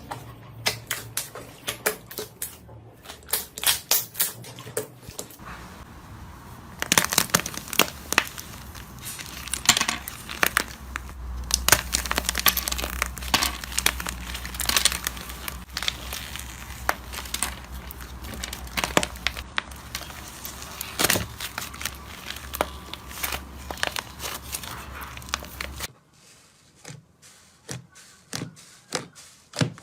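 Slime being squeezed and pressed by hand, giving dense crackling and popping clicks. Near the end it changes to quieter, sparser clicks.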